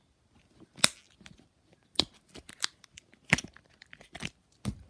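Plastic phone case being pried off an iPhone 5s by its corners: a string of about six sharp plastic clicks and snaps.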